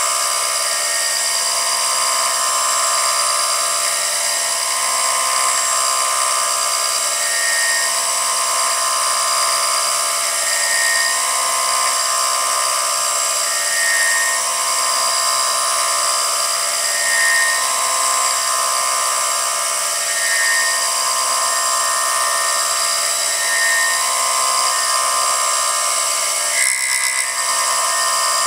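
CNC milling machine spindle running with a steady high whine while a home-made thread mill cuts an M6 thread by helical interpolation. The cutting noise swells and fades in a regular cycle about every three seconds, with a short click near the end.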